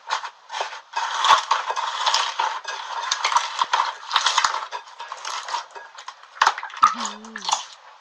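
Slime being squeezed and worked by hand: a dense run of wet clicking and crackling that thins out into scattered clicks.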